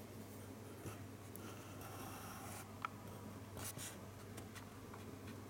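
Quiet room with a low steady hum, faint scratchy rustling and a few light clicks, one sharper click about three seconds in.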